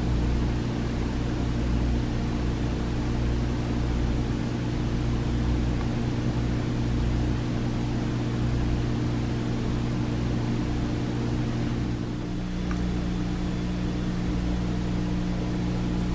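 Aquarium filter running: a steady electrical hum under an even hiss, its tone shifting slightly about twelve seconds in.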